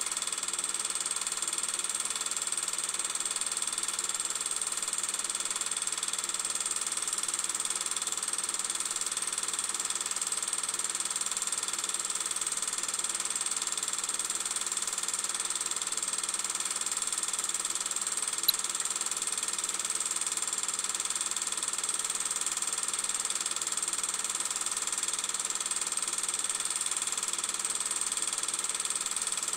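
Steady hiss with a faint constant whine, unchanging throughout, broken by one brief click about eighteen seconds in.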